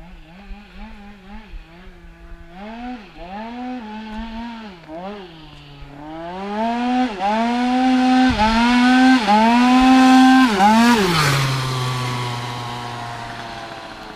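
Small high-revving two-stroke scooter engine on a tuned 100 cc kit, revving up and down again and again with the pitch dipping and climbing back and growing louder. About eleven seconds in the revs fall away sharply and the sound fades.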